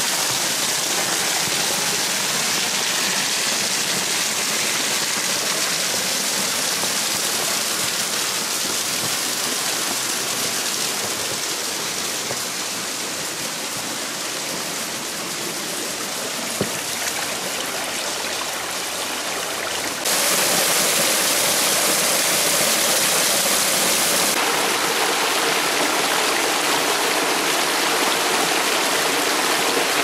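Steady rush of a small mountain stream pouring over rock in a short cascade. It gets suddenly louder about two-thirds of the way through.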